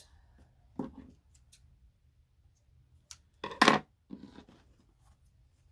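Fabric and sewing tools being handled: a few scattered rustles and clicks, the loudest a sharp clack a little past halfway, with no sewing machine running.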